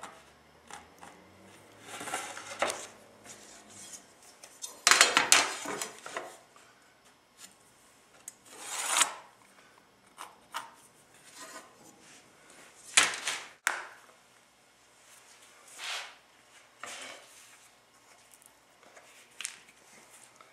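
Hand work on wood: short separate bursts of scraping and rubbing, the loudest about five seconds in, with a sharp click a little past halfway.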